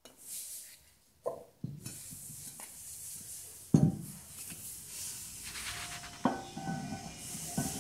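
Metal clanks and knocks as a heavy 28 kg flywheel is lifted and slid onto the crankshaft end of a D15 diesel engine, the loudest knock a little under four seconds in, with a faint metallic ring after the later knocks.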